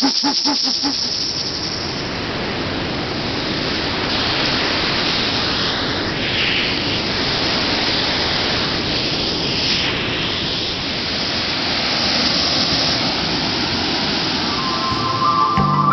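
A steady, loud rushing hiss with no clear tones, swelling and easing slightly a few times.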